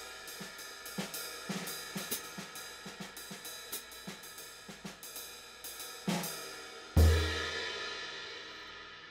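K Zildjian Constantinople 20" Hi Bell Thin ride cymbal played with a stick in a steady ride pattern, several strokes a second, its wash ringing bright and sustained. About seven seconds in comes one much louder crash on the cymbal with a low thump under it, then the cymbal rings out and fades slowly.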